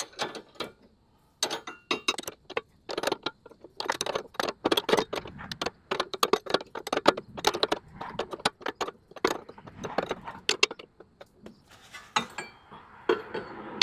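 Hand wrench clicking and clinking against the metal of a front sway bar end link as its lower nut is worked by hand in a cramped spot: a run of irregular sharp metallic clicks and knocks.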